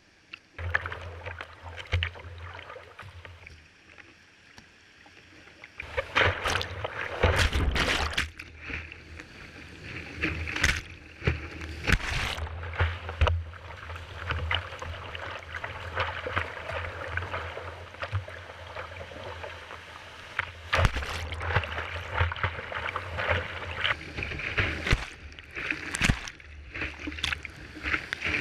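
Whitewater rapids rushing around a kayak, with waves and spray repeatedly slapping against the bow close to the microphone. The rush grows much louder about six seconds in as the boat drops into the rapid.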